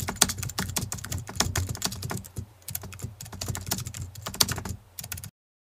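Keyboard typing sound effect: rapid, irregular key clicks with a couple of short pauses, stopping about five seconds in.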